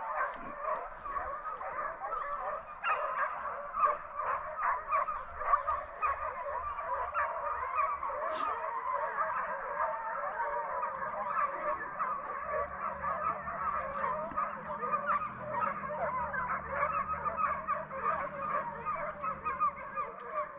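A pack of deer hounds in full cry, many overlapping bays blending into one continuous chorus as they drive a deer on its trail. A faint low hum joins about halfway.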